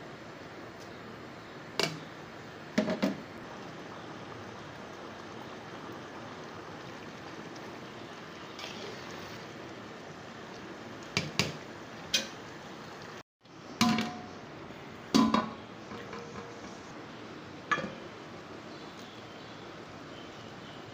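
Spoon clinking and clattering against a metal cooking pot several times, over a steady hiss from the pot of biryani broth on the stove.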